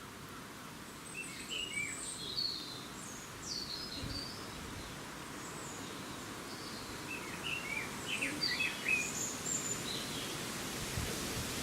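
Quick, high chirping calls, several in quick succession, over a steady outdoor background hiss.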